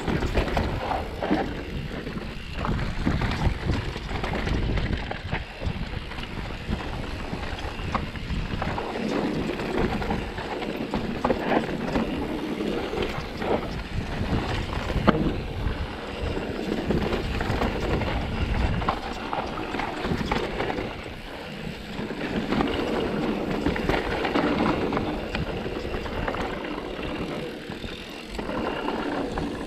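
Specialized Turbo Levo electric mountain bike riding down a trail: tyres rolling over the ground and the bike rattling, with frequent short knocks, and wind buffeting the microphone.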